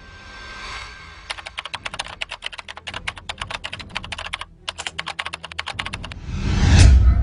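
A fast run of sharp typing-like clicks, about eight a second, with a short break a little past the middle. Near the end a swelling whoosh builds into a deep boom.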